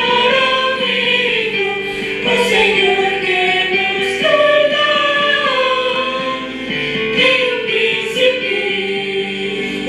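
A choir singing a Christian song with music, the sung notes held and gliding from note to note.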